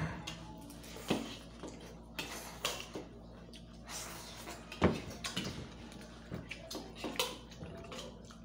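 Spoons and forks clicking and tapping on plates as people eat, with scattered light knocks, the sharpest about five seconds in.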